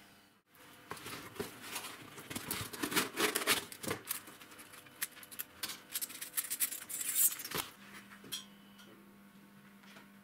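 A coiled steel band saw blade handled in gloved hands: the thin metal rattles, clinks and scrapes, with rustling, for several seconds. Then the handling stops and a faint steady hum is left.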